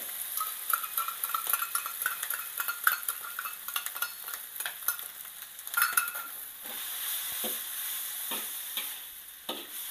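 Flat rice noodles frying and sizzling in hot oil in a wok, with a metal spatula scraping and clicking against the pan as they are stir-fried.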